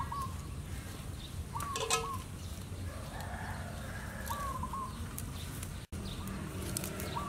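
A chicken calling again and again, short wavering calls about every three seconds, with a few light clicks and taps from vegetables being handled over a steady low hum.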